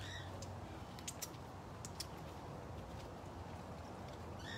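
Quiet background: a steady low hum with a few faint, light clicks scattered through it.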